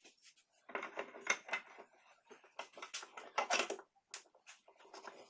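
Metal vise parts being handled and fitted together: irregular clusters of quick clicks and clinks, with short pauses between them.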